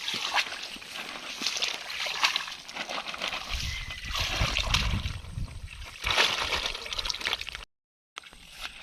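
Water sloshing and splashing in irregular bursts, with a heavier low swirl in the middle. The sound breaks off for a moment near the end.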